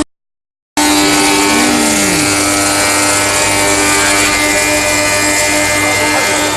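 Double-sided wood planer running: a loud, steady mechanical whine and hiss from its spinning cutter heads and motors. The sound starts abruptly after a moment of silence, with a short falling tone about two seconds in.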